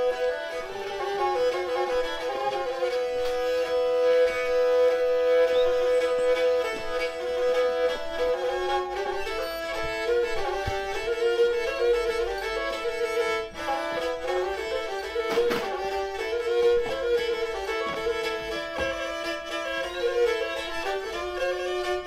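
Black Sea kemençe playing a folk tune as background music. It holds one long note for several seconds, then plays quick runs of notes over a steady lower drone.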